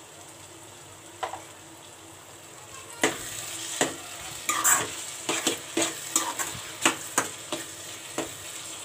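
A cooking utensil stirring chopped coriander into thick mashed baingan bharta in a kadai: one knock about a second in, then quick clacks and scrapes against the pan from about three seconds in, over a low frying sizzle.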